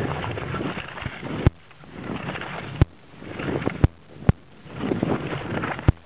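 Cross-country skis sliding over snow on a downhill run, a hiss that swells and fades with each stretch of gliding, broken by five sharp clicks.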